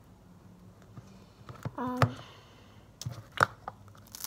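Scattered sharp clicks and taps of a plastic slime container being handled as slime is put back in. The loudest taps come about two seconds in, just after a brief steady pitched squeak, and again a little after three seconds.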